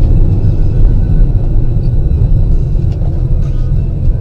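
Loud, steady low rumble of a moving car: road and engine noise.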